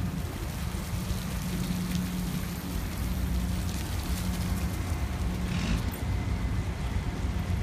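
Water sprinkler spraying and spattering on the ground in a steady hiss, over a steady low hum.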